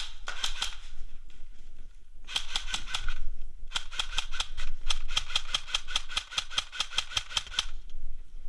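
Airsoft gun firing in full-auto bursts: three strings of rapid, evenly spaced shots at about eight a second, a short one at the start, another about two seconds in, and a long burst of about four seconds after that.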